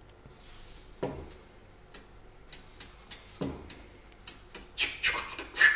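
A run of sharp percussive clicks and snaps, sparse at first with two low thumps among them, then coming faster and louder into a rhythm near the end.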